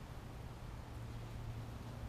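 Quiet room tone: a low steady hum with a faint hiss.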